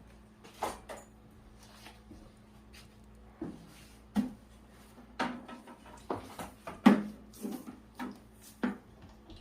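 Objects being moved around and set down on a workshop bench: a series of irregular wooden knocks and clunks, the loudest about seven seconds in, over a faint steady hum.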